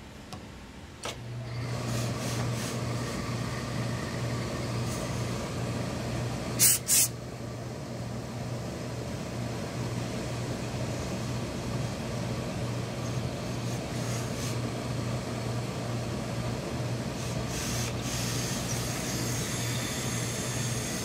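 Steam pressing equipment for a hose-fed industrial steam iron runs with a steady hum and hiss while a suit jacket hem is pressed. Two short, loud bursts of steam come about seven seconds in, and there is a further hiss of steam near the end.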